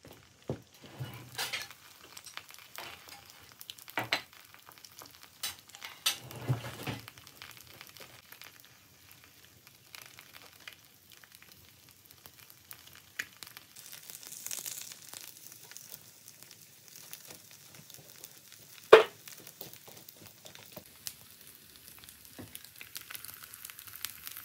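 Eggs frying in a nonstick pan, sizzling softly with scattered crackles and pops of spattering fat. One much louder sharp click stands out about three-quarters of the way through.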